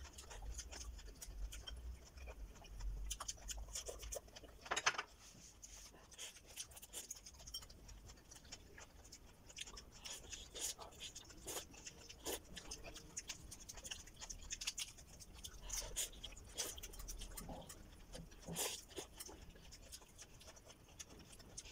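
Close-up eating sounds: irregular crisp crunches and mouth clicks from chewing raw vegetables dipped in bagoong, with rustling as a lettuce leaf is handled.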